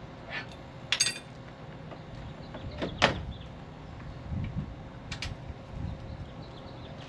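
A few separate knocks and clunks, with a sharp one about a second in and the loudest about three seconds in.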